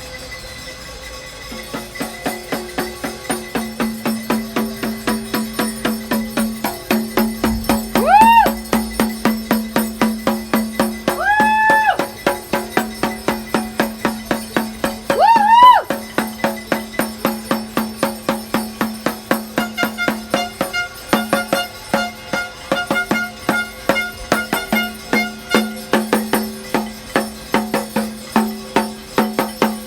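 Rhythmic hand clapping at a steady beat, about three claps a second, over music with a steady low tone. Three short rising-and-falling vocal calls come in about a third of the way through, and a repeated high note sounds later on.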